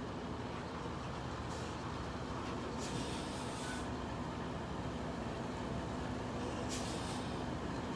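A semi truck's diesel engine running steadily at low speed as the tractor-trailer backs up, with three short hisses of compressed air from its air brake system.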